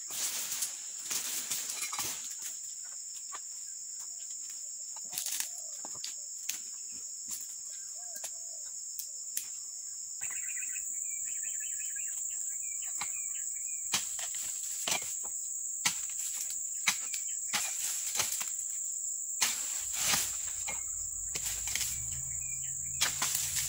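Repeated sharp knocks of a pole-mounted dodos chisel chopping oil palm frond bases, coming about once a second in the later part, over a steady high drone of insects. A bird calls briefly about halfway through.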